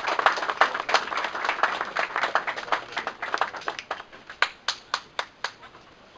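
A small group of people applauding: dense clapping that thins to a few separate claps about four seconds in and stops near the end.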